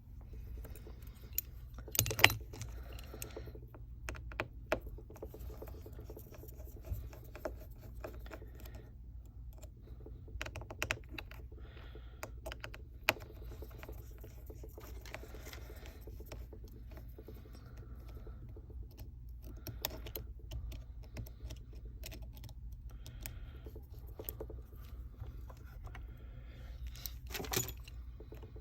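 Scattered light clicks and taps of small repair tools working on a smartphone's internals, as its wireless charging pad and internal parts are taken out, with a few sharper clicks about two seconds in and near the end. A steady low hum runs underneath.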